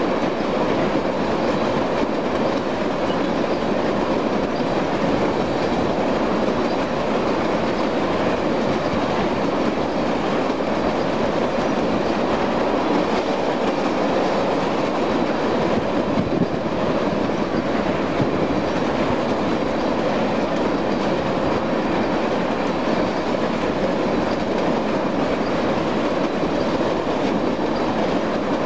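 Tank cars of a long freight train rolling past close by: a steady, loud rolling noise of steel wheels on rail.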